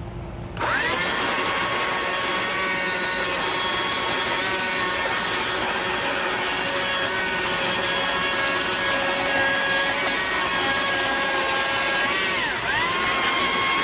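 Chainsaw revving up quickly about half a second in, then running at high speed as it cuts into the wooden owl carving, a steady high-pitched whine. Near the end its pitch dips briefly and comes back up as the saw takes load.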